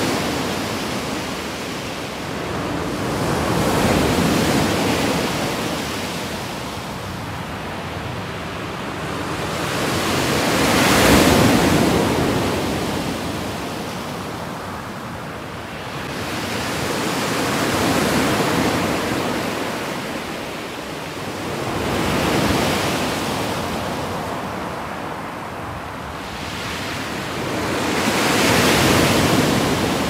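Small waves breaking and washing up a pebble beach, the wash swelling and fading about every six or seven seconds, five times.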